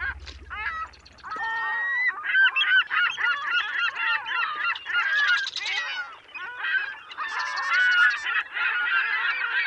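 A flock of birds calling over one another, many short bending calls at once, with a brief lull about a second in.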